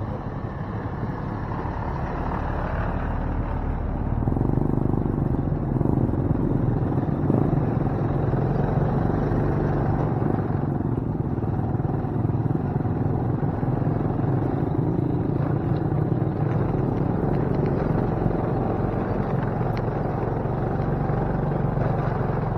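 Motorcycle engine running steadily as the bike rides along, heard from the bike itself. It gets louder about four seconds in and stays there.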